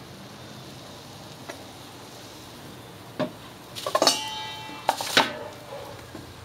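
A few sharp metal clanks about three to five seconds in, the loudest followed by a short ringing tone, as metal grill hardware or a utensil is knocked about at the charcoal grill.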